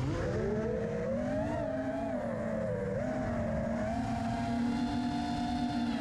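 FPV quadcopter's brushless motors and propellers whining, the pitch climbing from low over the first second and a half as the throttle comes up, then wavering and settling steady.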